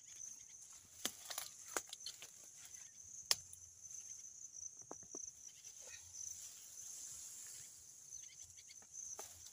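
Cassava plants and dry grass being pulled and broken by hand: rustling and a few sharp snaps, the loudest about three seconds in. A steady high insect buzz runs underneath.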